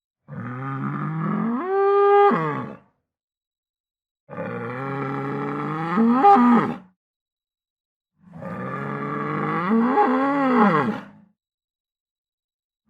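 Cow mooing: three long calls of about two and a half to three seconds each, with short silences between and the pitch rising toward the end of each call.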